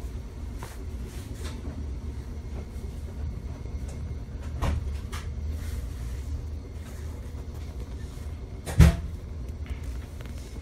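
Inside a streetcar: the car's steady low rumble, with a small knock about four and a half seconds in and a sharp, louder clunk near the end.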